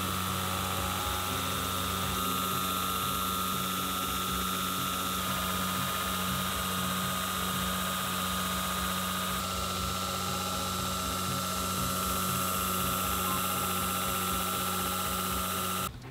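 Belt grinder running with a steady high whine over a hiss, sharpening a knife blade on a fine-grit belt. It cuts off suddenly just before the end.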